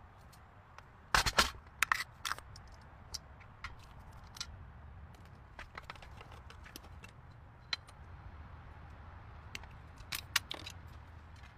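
Irregular sharp clicks and knocks over a faint steady low hum, loudest in a cluster about a second in and again near the end.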